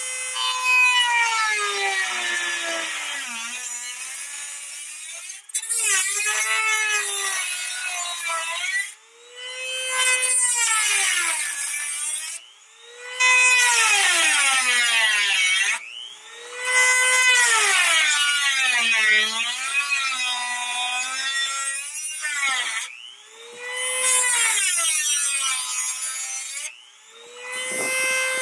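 Corded rotary tool with a Dremel cut-off disc cutting into a car's sheet-metal fender: the motor's high whine drops in pitch each time the disc bites into the metal and climbs back as it eases off. It goes in a series of short cuts, with brief pauses every few seconds.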